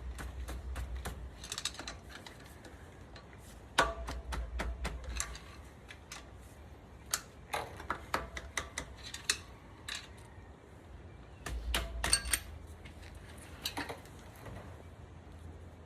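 Irregular metallic clicks, taps and clinks of small steel hub parts and tools being handled during wheel-bearing work on a vehicle's front hub, a few with a short ring, with occasional low handling rumbles.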